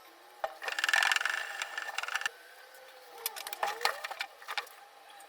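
A rapid mechanical rattle that starts about half a second in and stops sharply after about a second and a half, followed by a few scattered clicks and knocks.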